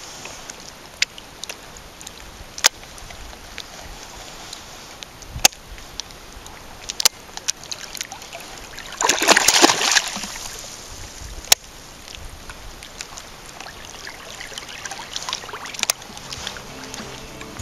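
Hooked black bass splashing at the surface, with one loud splash lasting about a second just past halfway, over lapping water and scattered sharp clicks. Background music comes in near the end.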